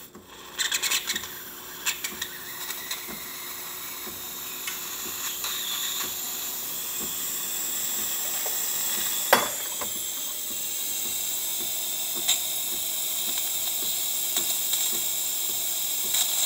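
DeLonghi Perfecta espresso machine's steam wand hissing steadily and slowly building as the thermoblock heats up and steam pressure starts to come in. A few light clicks near the start and one sharp knock about nine seconds in.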